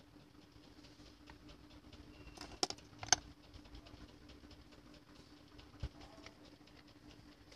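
Faint clicks and scratches of metal tweezers picking small components off a mobile phone circuit board, with two sharper clicks between two and a half and three seconds in and a dull knock a little before the end. A faint steady hum runs underneath.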